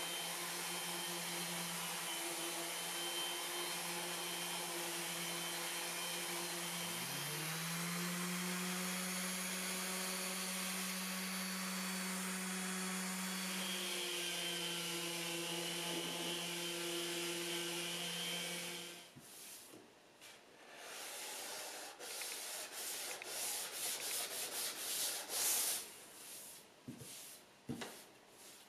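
Electric random orbital sander running steadily against end-grain hardwood, with a second motor tone rising as it spins up about seven seconds in; it shuts off after about nineteen seconds. Then comes hand sanding with a piece of sandpaper, short irregular scraping strokes on the end grain.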